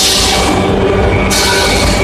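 Weinig four-sided moulder running: a steady machine hum with fixed tones. A loud high hiss swells for over half a second about once every second and a half.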